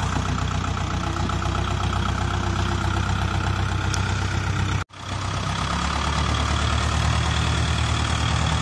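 Ford compact farm tractor's engine running steadily at low speed as it tows a trailer. The sound breaks off for an instant about halfway through, then the same engine carries on.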